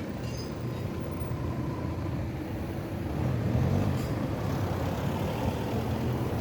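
A motor vehicle's engine running with a low rumble, growing a little louder about three seconds in.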